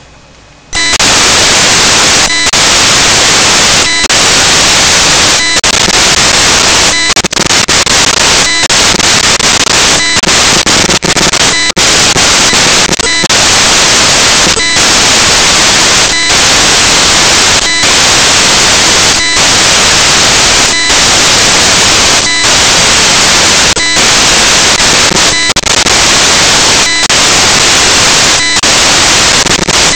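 Loud, steady static hiss like white noise. It cuts in suddenly about a second in and is broken by brief dropouts about every second and a half: a corrupted audio track rather than any sound from the scene.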